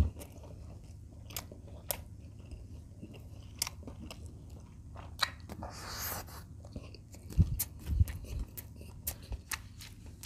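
Close-miked chewing of fried chicken breast and rice, with many short wet mouth clicks and lip smacks. There is a breathy hiss about six seconds in and two low thumps a little later.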